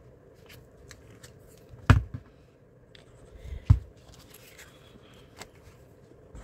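Stiff cardstock being handled and slid on a tabletop, rustling and scraping, with two sharp knocks, about two seconds in and again almost two seconds later.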